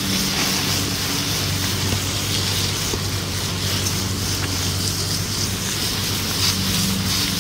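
Water spraying steadily from a garden hose onto a smouldering fire pit to put it out, a continuous hiss with a steady low hum underneath.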